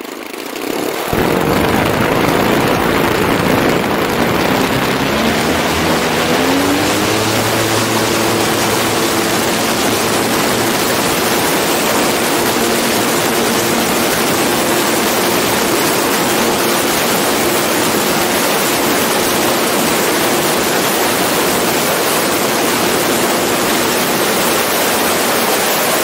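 The model's twin DLE-55 RA single-cylinder two-stroke petrol engines, heard from a camera taped to the airframe. They open up about a second in for the takeoff run, rise in pitch over the next several seconds, then hold steady at full power in the climb. A heavy rush of wind over the microphone runs under the engines.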